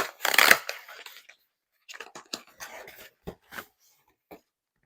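Book packaging being handled and opened: a loud crinkle near the start, then scattered rustles, crunches and small taps.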